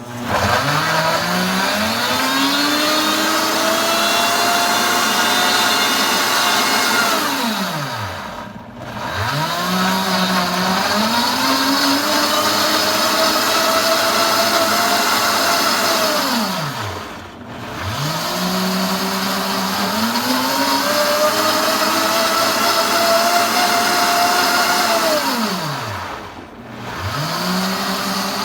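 Princess House countertop blender blending a green smoothie on an automatic pulse cycle. The motor spins up, runs steadily for about seven seconds, winds down almost to a stop, then spins up again, repeating about every nine seconds.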